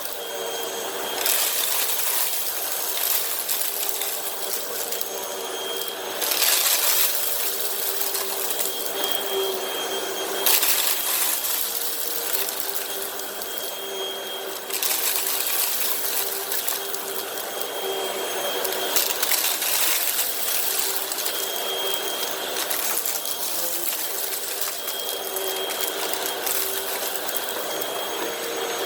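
Hoover WindTunnel High Capacity Pet upright vacuum running with its brush roll spinning: a steady motor tone under the rattle and crunch of dirt and debris being sucked up. The rattle grows louder in several stretches of a few seconds each.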